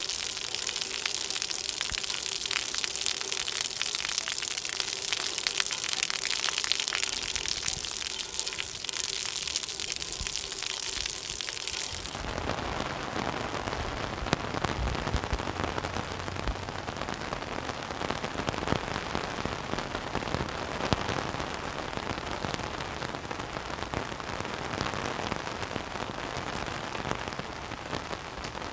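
Steady rain falling, a dense hiss of drops. About twelve seconds in it changes abruptly to a deeper, fuller rain sound.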